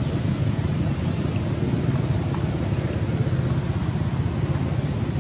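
A steady low rumble at an even level, with a few faint, short high chirps.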